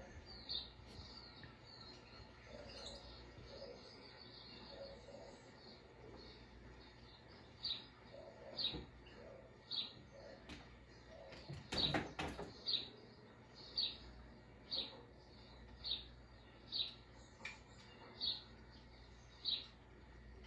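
Short high chirps repeating about once a second, played from a television showing a mouse video made to entertain cats, with softer warbling chirps before them. A little past the middle comes a quick cluster of knocks as the cat paws at the screen.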